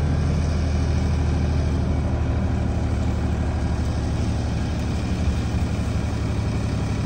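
Tractor-powered thresher running steadily: a continuous low engine drone with the clatter and rush of the machine over it, easing slightly after about two seconds.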